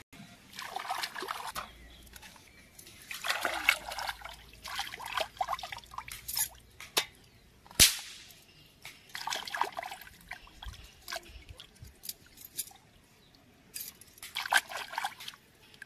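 Pond water sloshing and splashing in several short bursts as raw fish pieces are rinsed by hand at the water's edge. A single sharp knock comes about eight seconds in.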